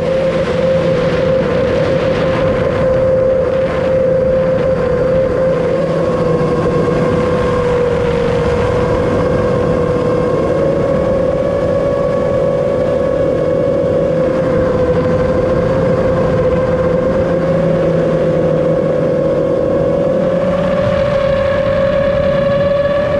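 FPV racing quadcopter's brushless motors and propellers whining steadily in flight, heard from on board over rushing air. The pitch wavers a little with throttle and climbs slightly near the end.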